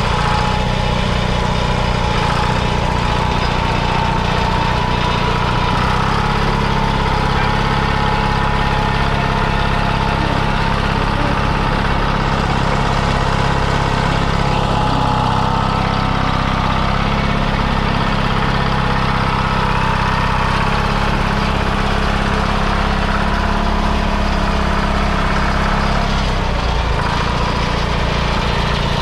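The 1950 Allis-Chalmers HD5 crawler's two-cylinder GM two-stroke diesel, running steadily. Its speed rises a little about six seconds in and settles back near the end.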